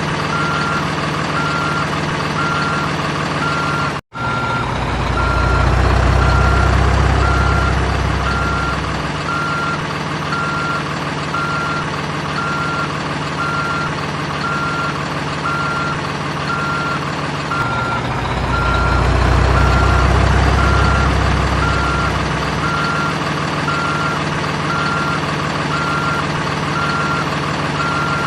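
Simulated reversing beeper from a toy RC construction vehicle, beeping steadily and evenly over a simulated engine hum. The low engine rumble swells twice, and there is a brief cut in the sound about four seconds in.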